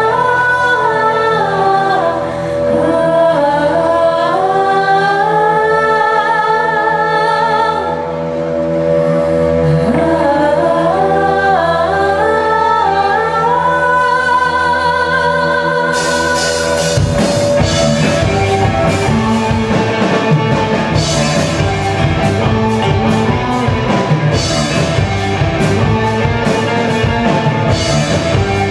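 Live ensemble music: sung lines that slide and waver over a steady held chord, then about sixteen seconds in cymbals and, a moment later, drums and bass guitar come in with a steady beat under the band.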